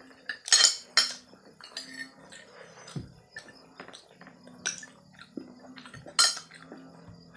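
Cutlery clinking and scraping on a plate while eating, in a run of sharp clinks, the loudest about half a second in, a second in, and about six seconds in.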